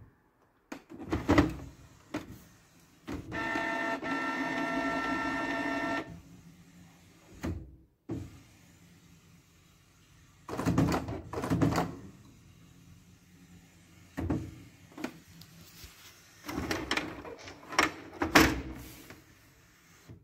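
Canon Pixma G3411 inkjet printer's mechanism working in several spells of whirring and clunking, with a steady motor whine lasting about three seconds starting about three seconds in. The printer is in error E15b, its black cartridge not recognised.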